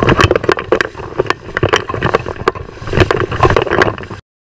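River water sloshing and splashing against a waterproof action camera held at the surface, with frequent knocks on the housing. The sound cuts off suddenly near the end.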